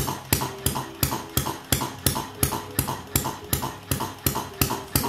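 Model hit-and-miss stationary engine running slowly, at about 200 rpm: a steady, evenly spaced sharp clicking, about three clicks a second.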